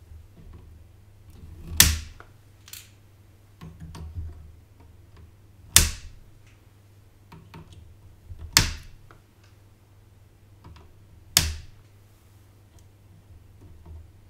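Flush cutters snipping the protruding leads of newly soldered capacitors: four sharp clicks a few seconds apart, with faint handling ticks between.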